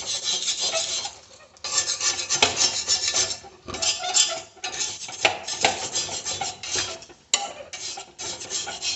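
Dried, puffed alum crust being scraped and broken up with a utensil in an iron pan over the fire, the stage where the dehydrated alum is crushed to finish burnt alum (alum bhasma). Repeated scraping strokes with short pauses, the longest about a second in.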